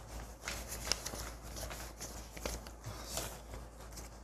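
Paper banknotes rustling and crinkling in a pair of hands as they are handled and folded, in short irregular crackles.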